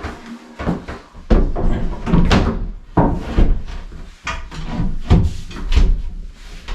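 A string of irregular knocks and thumps, roughly two a second, with the heavier ones carrying a low thud.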